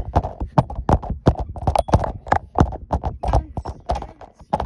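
Rapid, irregular thumps and knocks close to the microphone, about three a second.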